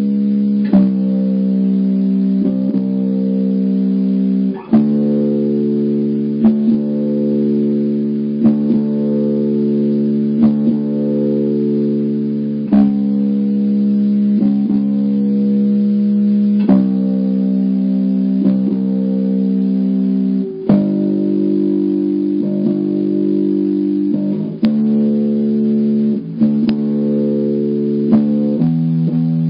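Precision-style electric bass played solo with no backing, plucking a slow bass line of long sustained notes that change about every two seconds.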